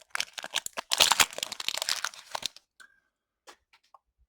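Foil wrapper of a Pokémon card booster pack being torn open and crinkled: a dense crackling run for about two and a half seconds, loudest about a second in, then a few soft clicks as the cards come out.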